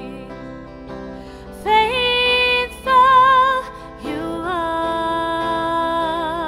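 A woman singing with electric guitar accompaniment. Strummed chords alone at first, then she comes in about a second and a half in with three sung phrases, the last one a long held note with vibrato.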